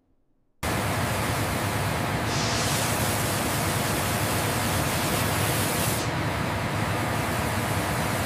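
Heavy rushing water, a dense steady hiss that starts abruptly about half a second in, like jets gushing from a bank of pipes, getting brighter and hissier for a few seconds in the middle.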